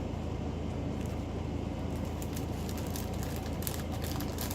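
Light clicking and rustling of small plastic bags of diamond-painting drills being handled, over a steady low hum.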